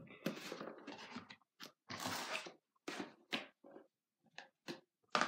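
Rustling and scraping of school supplies being handled: papers and plastic folders moved in and out of an open ring binder, in short irregular bursts, with a sharp knock near the end.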